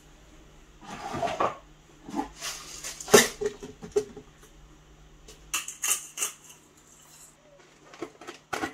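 Kitchen handling noises as seasonings are added to a steel pan of raw chicken feet: scattered rustles and clicks, with one sharp knock about three seconds in, over a steady low hum.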